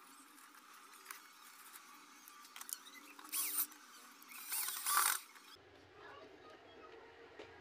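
Cordless drill-driver running in two short bursts, about three and a half and five seconds in, driving screws to close the plastic housing of a corded impact drill. Small handling clicks come before them.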